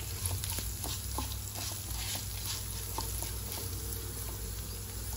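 Rice and orzo toasting in olive oil in a granite-coated pan over low heat, stirred with a wooden spatula. A steady light sizzle runs under irregular scraping ticks from the grains and spatula against the pan.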